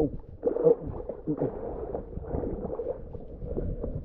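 Water sloshing and gurgling around people standing in the water, with a few short muffled sounds of voice.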